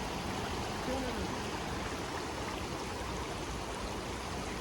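Valley stream flowing steadily, a continuous rush of water.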